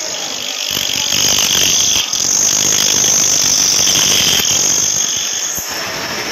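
Pillar drill press running with its twist drill cutting into a metal workpiece held in a machine vice: a high-pitched cutting noise swells about a second in, breaks briefly near two seconds, and eases off near the end, over the steady run of the drill motor.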